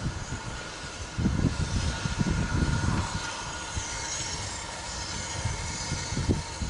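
BR Standard Class 2MT steam locomotive drifting slowly tender-first with its coaches: a low rumble with a faint hiss, broken by irregular gusts of wind on the microphone.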